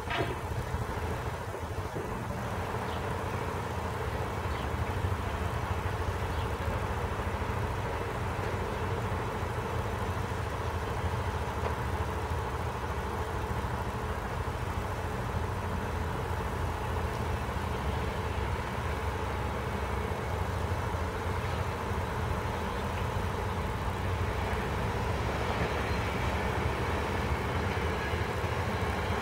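Steady low rumble and hum of a distant electric commuter train approaching along the tracks, growing slightly louder only at the very end.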